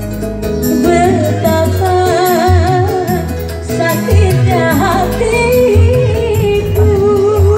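A woman singing a wavering, heavily ornamented melody into a microphone over an electronic keyboard (organ tunggal) accompaniment with a steady beat, loud and amplified.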